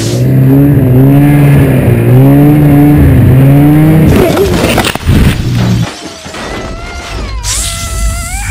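Snowmobile engine running hard, its pitch rising and falling with the throttle for about four seconds. A burst of noise follows, then a higher wavering tone that glides and dips near the end.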